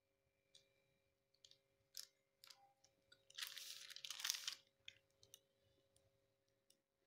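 Thin polythene sheet crinkling as it is handled, a dense rustle for about a second just past the middle. Before and after come a few light ticks and scrapes of a knife cutting soft potato dough on the plastic.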